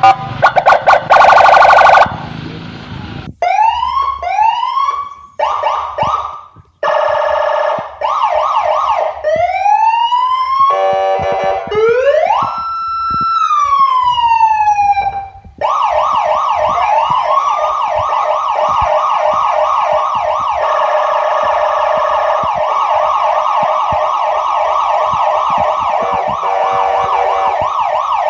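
Emergency-vehicle sirens in a string of changing patterns: a loud pulsing tone first, then short rising whoops, one long wail that climbs and falls, and from about halfway a fast, steady repeating siren.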